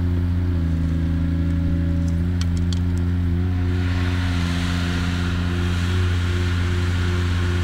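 Heavy construction machine's diesel engine running steadily with a deep hum, its pitch shifting slightly twice. A few light clicks come about two and a half seconds in, and a rushing hiss joins the engine from about four seconds on.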